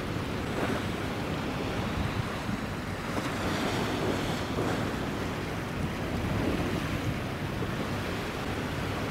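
Steady wind rushing over the microphone, mixed with the wash of sea water.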